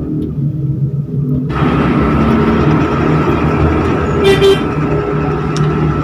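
Street traffic: a motor vehicle engine running close by, with the noise rising sharply about a second and a half in, and a brief horn toot about four seconds in.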